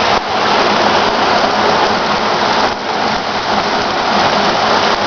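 Heavy storm rain pouring down in a steady, loud hiss, dipping briefly twice.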